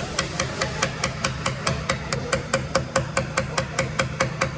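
A clip-on wheel balancing weight being tapped onto the rim edge with a small hammer: quick light metallic taps, about five a second, with a low steady hum underneath.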